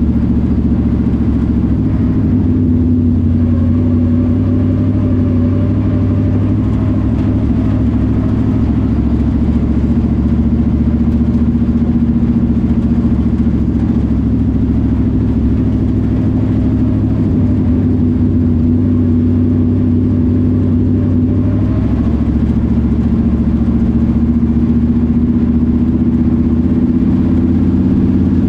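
Engine of a 602 dirt late model, a GM 602 crate V8, heard from inside the car while running at low revs. The engine note is steady and loud, wavering slightly in pitch a few times.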